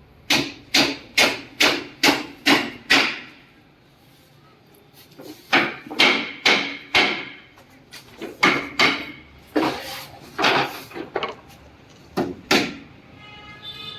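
Hammer striking wood: a run of about seven blows, roughly two a second, then after a pause several shorter runs of blows. A steady pitched tone starts near the end.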